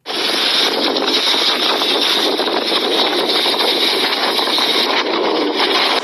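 Storm wind blowing across a phone's microphone: a loud, steady rush of noise that starts suddenly.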